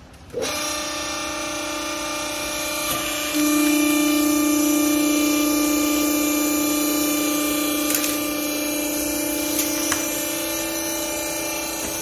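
Small vertical baler's hydraulic power unit switched on: electric motor and pump running with a steady hum. It gets louder about three seconds in.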